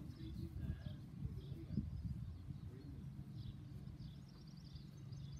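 Outdoor ambience: birds chirping faintly now and then over a low steady hum and rumble.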